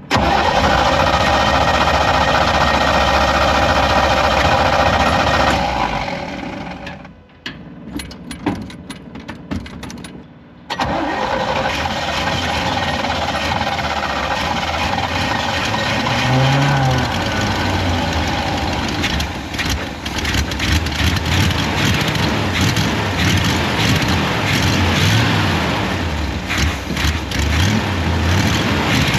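1955 Willys Jeep's engine being cold-started: a steady cranking sound for about six seconds, a few seconds of quieter clicks, then the engine catches and runs unevenly, with a short rev a few seconds after it fires. A pretty awful start, the sign of an engine that needs some attention.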